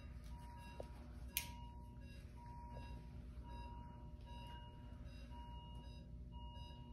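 Faint, evenly repeating electronic beep from a bedside patient monitor over a low room hum, with one sharp click about a second and a half in.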